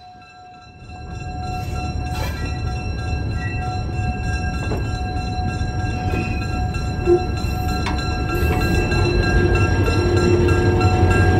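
SW switcher locomotive's EMD 567 diesel engine running as the locomotive rolls toward the listener, growing steadily louder. There is a brief sharp sound about seven seconds in.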